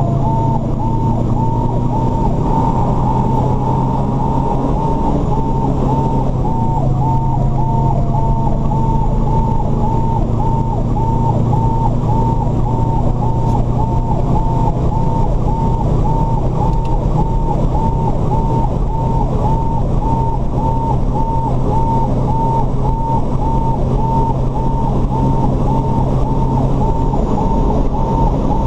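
Cab interior of a 1992 Saulsbury Simon/Duplex fire engine under way: the engine drones steadily under road noise, with a high pulsing beep repeating close to twice a second throughout.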